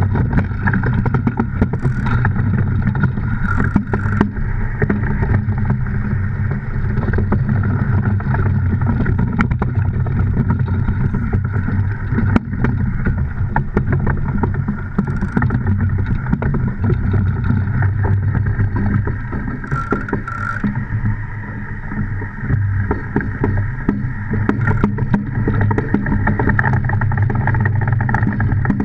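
DN iceboat sailing over the ice: the steel runners and hull make a steady, heavy low rumble, scattered with sharp clicks and a few short hisses.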